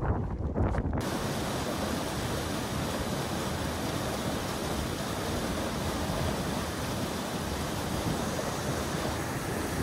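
Wind buffeting the microphone for about the first second, then an abrupt change to the steady rush of a fast river pouring through a narrow rock channel.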